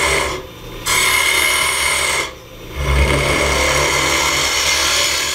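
Easy Wood Tools round #1 carbide hollower cutting into spinning maple burl on a wood lathe: a steady cutting noise of shavings coming off, broken twice briefly, about half a second in and again a little after two seconds, as the tool lifts off the wood.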